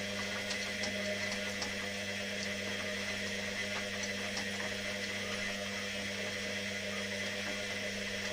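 Washing machine running: a steady electric-motor hum with a whirring haze over it and occasional faint clicks.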